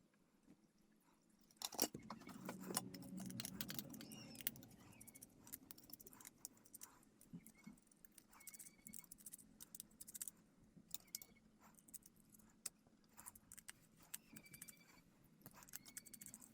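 Faint, scattered clicks and rattles of small hard plastic parts and tools being handled, with short squeaks now and then, starting about two seconds in.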